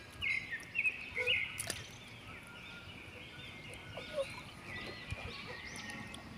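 Birds chirping: many short, arched calls overlapping, with a sharp click about one and a half seconds in.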